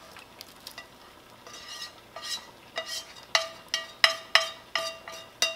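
Cooked onions scraped from a frying pan into a pot, with faint scraping and small clicks, then about ten knocks of metal cookware, each ringing at the same pitch, as the pan and spatula are tapped against the pot to empty them.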